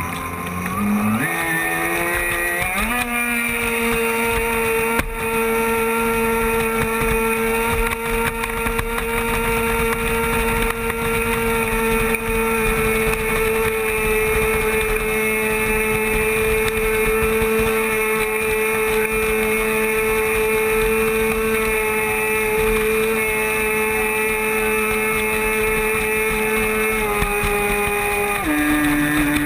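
Traxxas Spartan RC boat's brushless electric motor whining, heard from a camera riding on the hull. The pitch climbs over the first few seconds as the boat speeds up, then holds steady at speed over a hiss of water and wind. It steps down in pitch twice near the end as the throttle eases.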